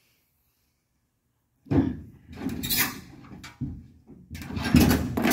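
Metal clanking and scraping in several loud bursts, starting a little under two seconds in, from a stripped demolition-derby car body being jacked up and worked onto a stand.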